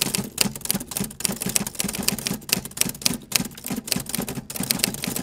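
Typewriter typing sound effect: a rapid, uneven run of mechanical key clacks, about five or six a second, that cuts off abruptly at the end.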